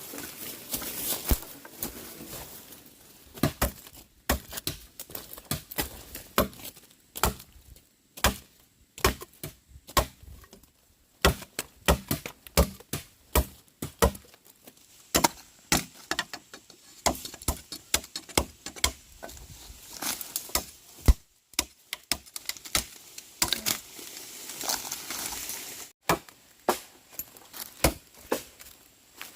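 An irregular series of sharp knocks and cracks, several a second with short pauses, as from hand work on wood or stalks.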